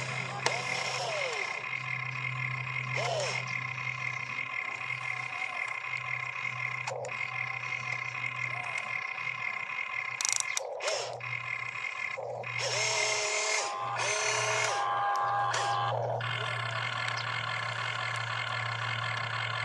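Toy RC excavator working its boom and bucket: a steady electric whine and hum, with short rising-then-falling whines as the arm motors speed up and slow down, and a few brief knocks near the middle.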